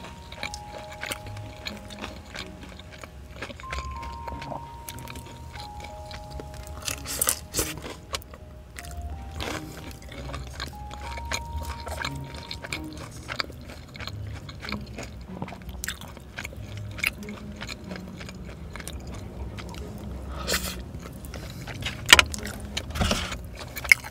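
Close-up chewing and biting of fried chicken, with many small wet mouth clicks and a few louder crunchy bites, one about seven seconds in and several near the end. A soft tune of single held notes plays under it for about the first half.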